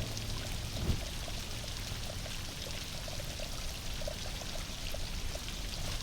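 Steady running, pouring water with small drips through it.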